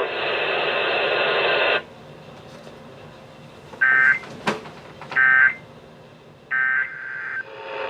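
Emergency Alert System end-of-message signal: three short bursts of warbling SAME data tones about a second apart, preceded by a steady radio hiss that stops after about a second and a half. A sharp click falls between the first and second bursts.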